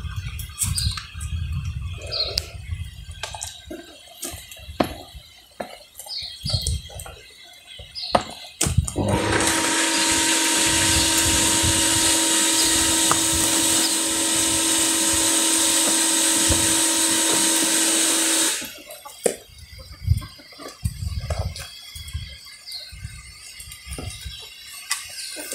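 A loud steady rushing hiss with a low hum, like running water or a motor, starts suddenly about nine seconds in and cuts off about nine seconds later. Before and after it come scattered knocks of wooden stirring sticks against a metal dye pot, with a few short bird chirps.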